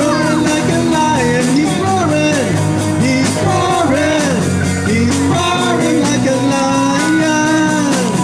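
Live rock band playing a worship song: drum kit, bass guitar and electric guitar through PA speakers, with a voice singing over them.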